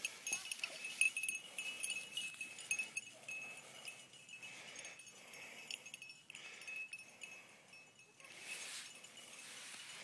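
Dry grass and brush rustling and swishing as someone pushes through thick cover, with a light, repeated metallic jingling throughout.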